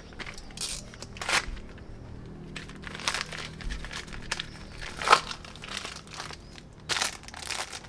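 Padded mailer envelope being torn open by hand: irregular rips and crinkling rustles, with the sharpest rip about five seconds in.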